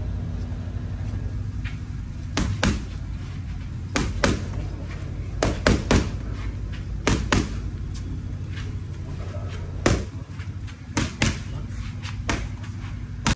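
Boxing gloves striking focus mitts: a dozen or so sharp smacks, mostly in quick pairs like one-two combinations, over a steady low background rumble.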